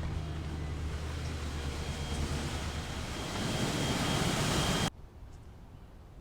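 Nissan Titan's 5.6-litre V8 running steadily on a test run just after its fan clutch was replaced, with the engine fan turning. The sound cuts off suddenly about five seconds in.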